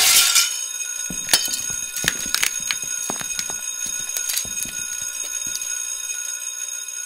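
A loud burst of hiss that cuts off about half a second in, then a steady high ringing tone like an alarm bell, with irregular sharp clicks over it.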